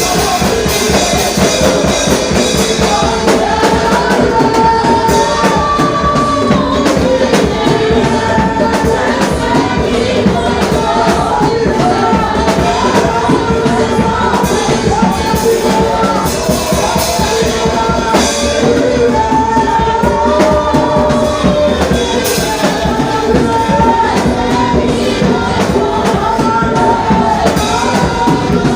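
Church worship music: voices singing a melody over band accompaniment with drums, continuous and even in loudness.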